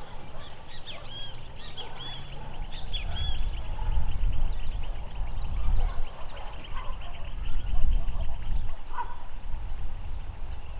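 Marsh ambience: wind rumbling on the microphone under a steady, high, rapidly ticking chorus of small animals, with short high chirping calls in the first few seconds.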